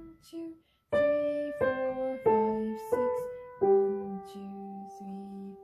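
Steinway grand piano played with the right hand only: a simple melody of single notes, five of them about two-thirds of a second apart, the last one held and left ringing.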